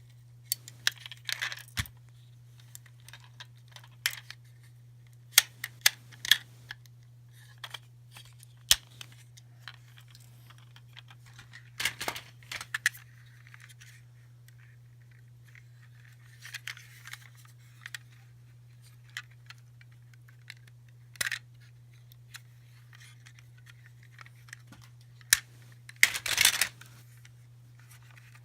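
Scattered clicks, taps and short rustles of small plastic toys and surprise-egg packaging being handled, over a steady low hum.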